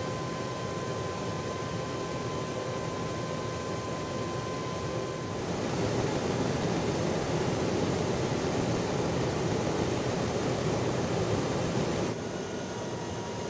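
Steady roar of jet engines and airflow heard inside a KC-10 Extender tanker in flight, with a faint steady whine for the first few seconds. The roar turns louder about five and a half seconds in and drops back near the end.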